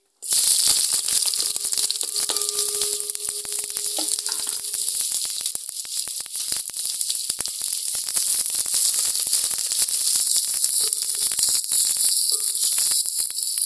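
Sliced red onions dropped into hot oil in an aluminium cooking pot, frying with a loud crackling sizzle that starts suddenly and keeps going.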